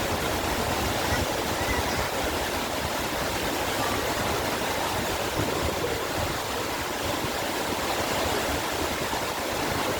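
Waterfall: water rushing in a steady, unbroken roar.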